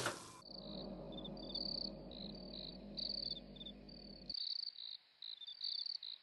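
Crickets chirping in short, irregular high trills, over a low steady hum that cuts off suddenly about four seconds in.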